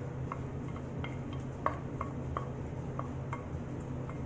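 A spoon scraping and tapping against a bowl as thick creamy filling is scooped out, a series of short light clicks about two or three a second, over a steady low hum.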